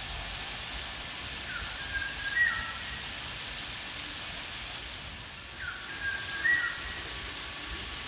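Water from a small waterfall splashing down a rock face, giving a steady hiss. A bird sings the same short whistled phrase twice, about two seconds in and again about six seconds in.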